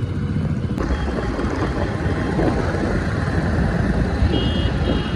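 Steady wind and road noise with engine drone from a vehicle travelling at speed on a highway. A few short high beeps sound near the end.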